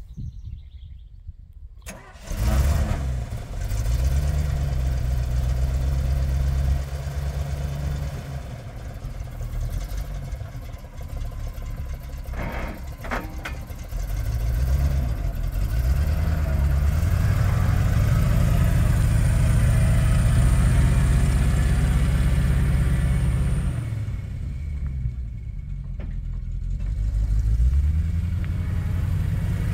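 1982 GMC C6500 grain truck's engine starting up about two seconds in, then running at idle and being revved up and down several times.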